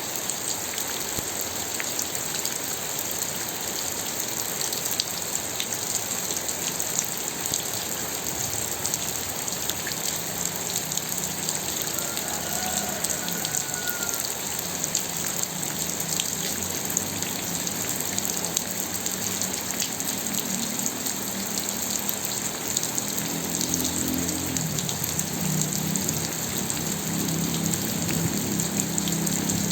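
Steady rain falling, an even hiss with many small drop ticks. From about ten seconds in, a low rumble joins and grows a little louder towards the end.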